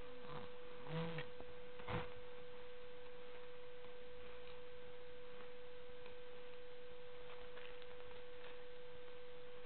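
A steady hum on one constant tone, with faint mouth sounds from chewing a dry mouthful of saltine crackers and a small click about two seconds in.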